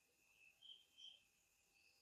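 Near silence: faint room tone with a few short, high chirps in the background, two of them close together in the middle.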